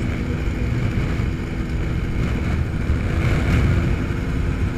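TL-32 Typhoon ultralight aircraft's engine and propeller droning steadily in cruise flight, heard from inside the cockpit with wind rush over it.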